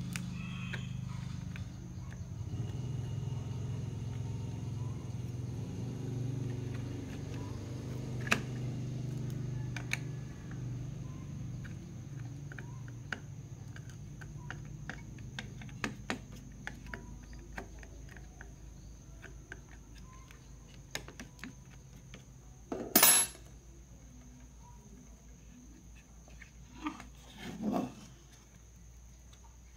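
Light metallic clicks and taps of tweezers and tools against a TV power-supply circuit board, over a low hum that fades away during the first half. A louder clatter comes about two-thirds of the way through, and two softer knocks near the end as the board is handled.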